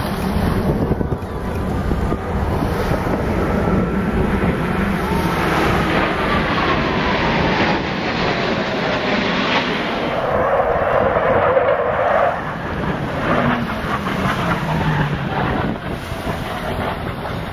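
Roar of Blue Angels F/A-18 Hornet jets passing overhead, with a whine in it falling slowly in pitch as they go by. Wind buffets the microphone throughout.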